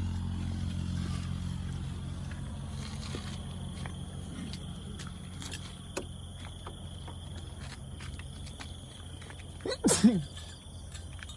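A small car engine running steadily, its hum slowly fading away. About ten seconds in, a short, loud voice-like cry with a bending pitch.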